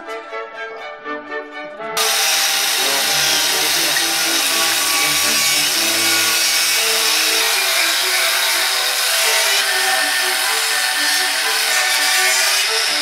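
An angle grinder starts about two seconds in and grinds metal steadily and loudly, over orchestral brass music that runs throughout.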